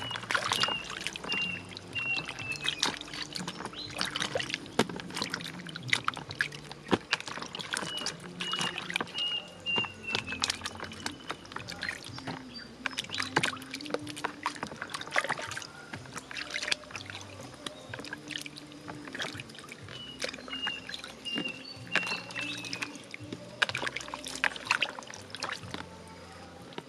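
Hands swishing chillies and small green eggplants through a plastic basin of water, with repeated splashes and drips as vegetables are lifted out. A bird sings a short falling run of high notes three times.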